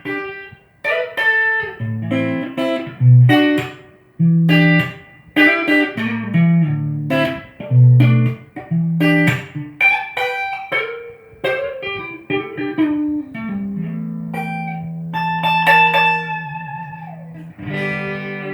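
Ibanez RG560 electric guitar played solo: a run of separately picked notes and low riff notes, then a held low note ringing under higher notes, one of which slides down in pitch near the end, followed by a freshly struck chord.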